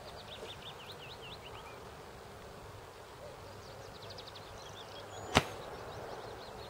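A single sharp shot, about five seconds in, from a Silverback SRS spring-powered bolt-action airsoft sniper rifle.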